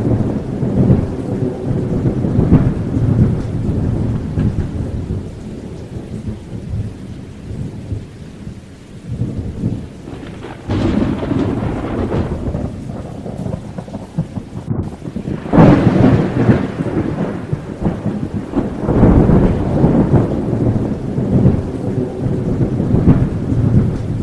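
Thunderstorm sound effect: steady rain with rumbling thunder that swells up several times, loudest about sixteen seconds in.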